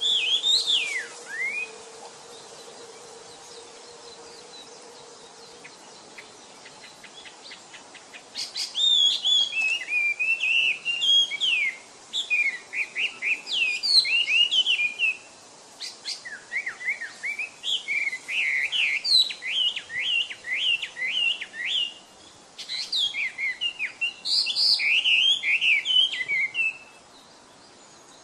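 Chinese hwamei singing: a short whistled phrase at the start, then, after a few quieter seconds, four long runs of rapid, varied whistled notes sliding up and down, separated by brief pauses.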